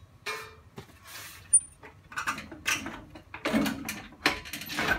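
Hand-operated sheet metal brake being worked to fold thin sheet metal: a run of metal clanks and scraping from the clamp and bending leaf, with a sharp click about a second and a half in and the busiest clatter in the second half.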